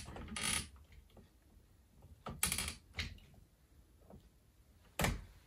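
Hands working stiff electrical wires into an open breaker panel: a few sharp metallic clicks and short scraping rustles, the loudest click near the end.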